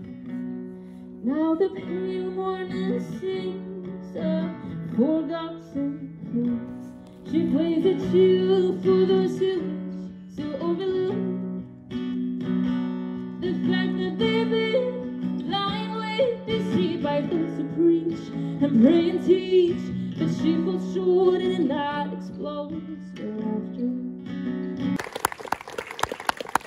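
Live female vocalist singing into a microphone while strumming an acoustic guitar. About 25 seconds in the song ends and hand-clapping applause starts.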